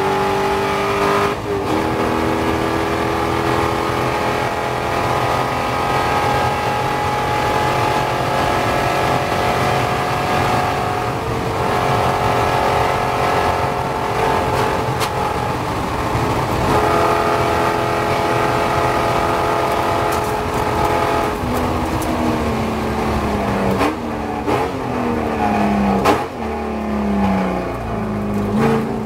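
Chevrolet C5 Corvette Z06's LS6 V8 racing at full throttle, heard from inside the cockpit, with several upshifts as speed climbs. Near the end it slows hard: revs fall in steps, with throttle blips on each downshift.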